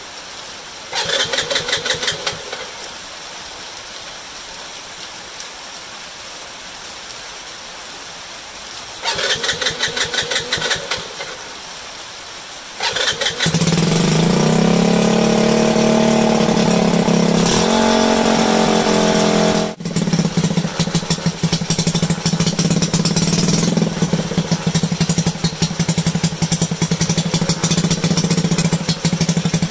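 Rebuilt 70cc single-cylinder moped engine being started: two short cranking attempts that don't catch, then on the third it fires and runs. It revs up and down for a few seconds, then settles into a steady idle.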